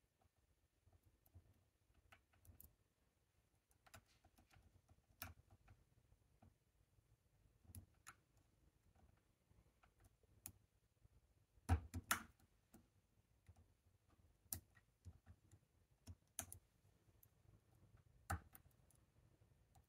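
Faint, sparse metallic clicks of a hook pick working the pins of a Chicago Lock Co tubular lock with pin-in-pin pins, held under tension, with a louder cluster of clicks a little past the middle.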